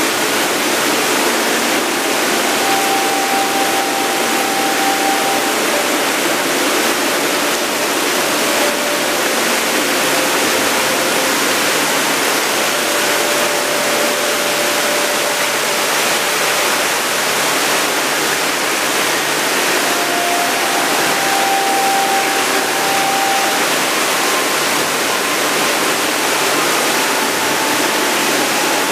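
Steady rush of many water droplets falling and splashing from a Water Pearl drip fountain. A few faint long held notes sound over it, each at a different pitch.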